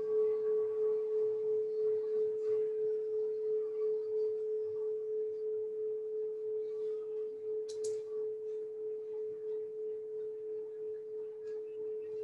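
A long metal sound-therapy chime tube ringing out after being struck: one steady, pure tone with a slight pulsing waver, slowly fading, its higher overtones dying away about a second in. A brief faint click comes near the middle.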